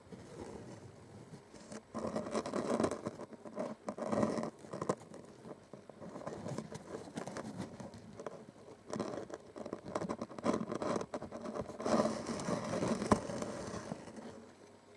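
Rustling and scraping of a stitched strip of non-woven fabric being handled and rubbed between fingers close to the microphone, in uneven bursts with a few sharper clicks.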